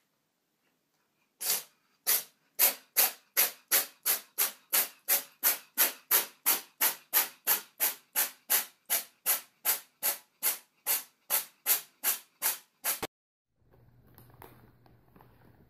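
A cat giving a quick, even run of short hissing breaths, about two and a half a second for some eleven seconds, which stop abruptly.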